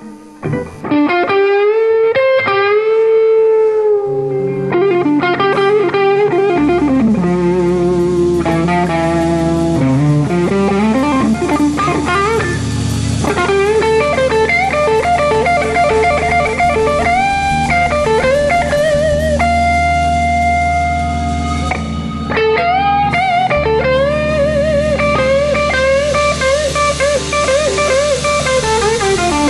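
Live blues band playing an instrumental passage led by an electric guitar solo of bent and held notes. The solo starts nearly alone about a second in, and the bass and the rest of the band come in a few seconds later.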